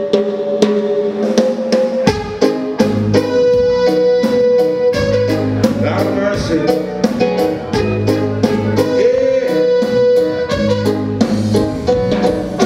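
Live band playing an instrumental passage: drum kit keeping a steady beat with snare and bass drum, with electric guitar and keyboard notes. A bass line comes in about two seconds in.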